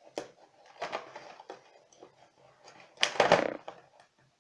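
Small scissors snipping and prying at a cardboard box's tape and flap: a few sharp clicks, then a louder burst of cardboard scraping and rustling about three seconds in.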